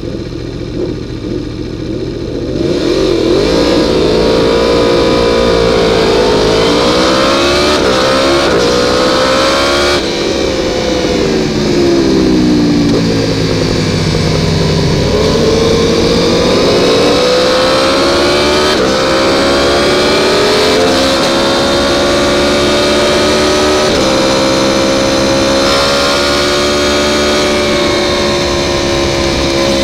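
Yamaha YZF-R1 superbike's inline-four engine held at steady revs on the start grid, then launching about two and a half seconds in and accelerating hard through the gears: a rising pitch broken by quick upshifts. Around ten seconds in the revs fall away as it brakes and downshifts for a corner, then climb again through the upshifts to full speed on the straight.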